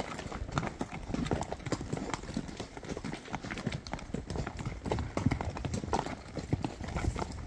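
Horses' hooves clopping at a walk on a stony dirt trail, an irregular run of hoof falls from several horses in a line.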